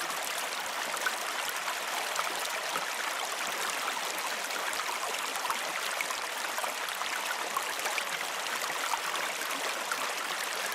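Flowing water, a steady unbroken babble.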